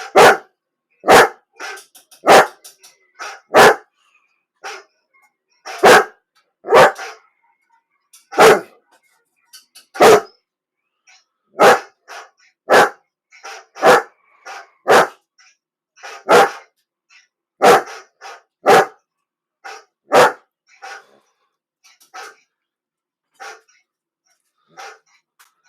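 A dog barking repeatedly in short, sharp barks, the loud ones about a second apart with softer barks between. The barks grow sparser and quieter over the last few seconds.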